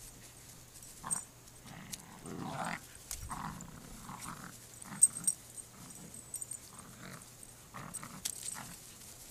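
Two dogs growling and grunting in play while tugging at a plush toy, in short irregular bursts. A brief sharp click about five seconds in.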